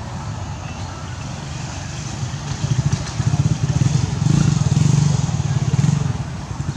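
A motor vehicle's engine running with a low rumble, growing louder from about halfway through.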